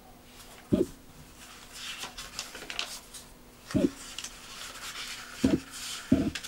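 Pages of an old paper booklet being turned by hand: dry paper rustling and flicking, broken by four short dull thumps.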